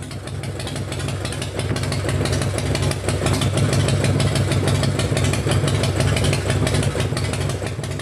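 Motorcycle engine running steadily with fast, even firing pulses, growing louder at first and fading out near the end.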